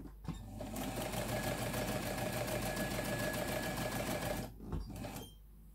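Vintage Jones M949 electric sewing machine running and stitching through fabric in one fast, even burst of about four seconds, starting about a second in and stopping near the end. A click comes just before it starts and a knock or two after it stops.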